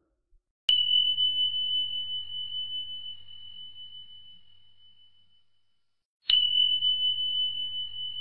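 A small bell or chime struck twice, each strike ringing with one high, clear tone that slowly fades away; the second strike comes about five and a half seconds after the first.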